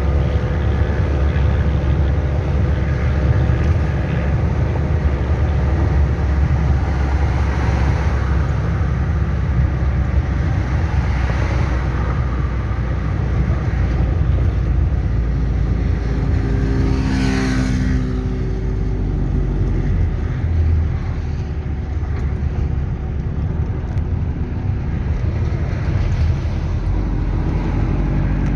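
Chevrolet D-10 pickup's turbo diesel engine running steadily, with a brief surge in pitch and level about two thirds of the way through.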